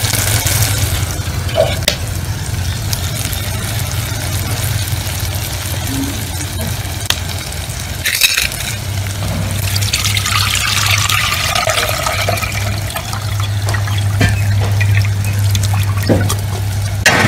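Tamarind water poured through a plastic strainer into a steel pot, the liquid splashing most strongly a little past the middle, over a steady low hum.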